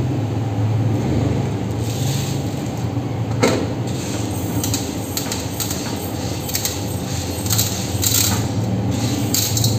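Dry grains and red lentils being scooped and poured, rattling and clinking against a steel plate and a small cup in scattered short bursts, over a steady low hum.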